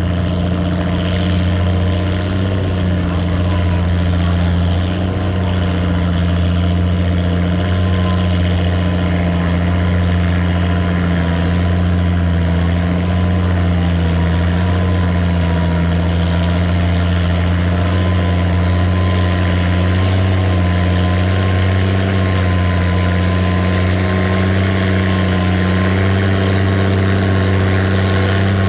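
Antique farm tractor engine running at a steady, unchanging speed, with a deep, even pitch throughout.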